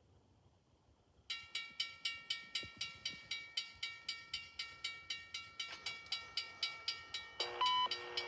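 Railroad grade-crossing bell starts ringing about a second in, with rapid, even strokes, about four a second. Near the end an approaching Amtrak locomotive's horn sounds its chord over the bell.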